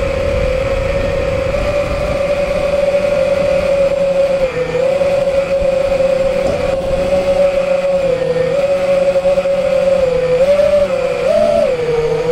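Quadcopter's four brushless motors (T-Motor F40 II, 2400 kV) spinning 5-inch props, a steady whine heard from the onboard camera. The pitch dips briefly a couple of times and wobbles up and down near the end as the throttle changes, over a low rush of wind.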